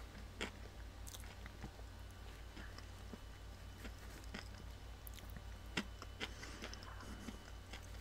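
A person chewing a crispy fried chicken sandwich close to the microphone: faint, scattered crunches and mouth clicks of the breading being chewed.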